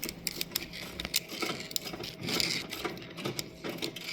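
Irregular light clicking and tapping of small metal parts and tools being handled in a truck engine's exposed valve gear, with a couple of brief rustling scrapes.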